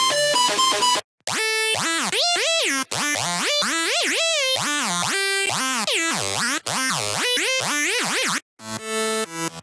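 Xfer Serum software synthesizer playing hard bass presets in turn. A stepped riff stops about a second in. After a short gap, a preset plays notes that slide steeply up and down in pitch for about seven seconds. Near the end, after another short gap, a new preset starts with short, clipped pulsing notes.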